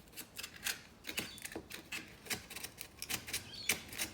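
Sandpaper rubbing on timber in short, irregular scratchy strokes, a few a second, sanding the inside of a freshly chiselled cut.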